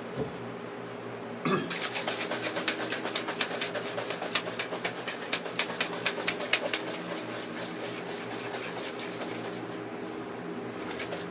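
Plastic shaker bottle of water and energy powder shaken hard: a fast, even run of sloshing knocks, about six a second, starting about a second and a half in and stopping after about five seconds, mixing the drink. A steady low hum remains after the shaking stops.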